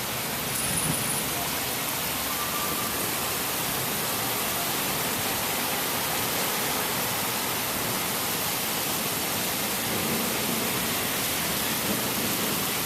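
Steady rain falling during a severe thunderstorm, an even, constant hiss.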